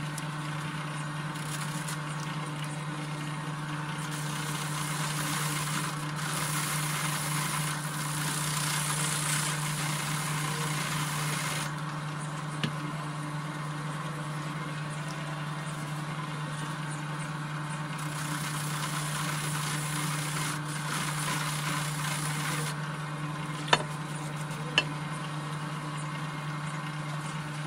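A steady machine hum at one low pitch, with stretches of hiss that start and stop, and two sharp clicks a second apart near the end.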